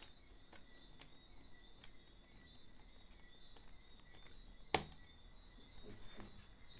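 Faint small clicks and scrapes of a screwdriver turning screws into a laptop's hard-drive bracket, with one sharper knock about two-thirds of the way through. A faint steady high whine sits underneath.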